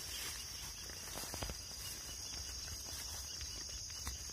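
Steady high-pitched insect drone, with a few faint snaps and rustles of footsteps through brush.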